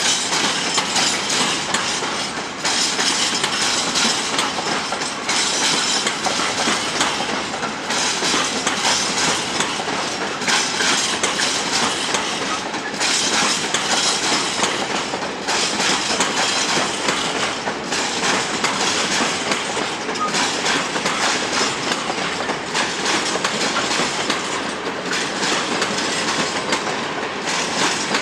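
Freight train of open-top wagons rolling past, steel wheels clattering on the track in a continuous rumble. The clatter swells about every two and a half seconds as each wagon's bogies go by.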